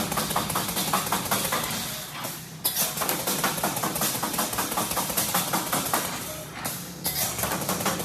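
Semi-automatic wire mesh welding machine running: rapid crackling and clattering of the welding, in stretches of a few seconds with short pauses, over a steady machine hum.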